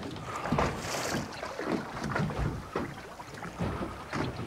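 Wind buffeting the microphone over the sea's wash, with irregular slaps and knocks of water against the hull of a boat riding at anchor, and a short gust of hiss about a second in.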